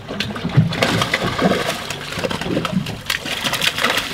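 Irregular splashing and slapping of water as a hooked fish thrashes at the surface beside the boat while it is reeled in, picking up about a second in.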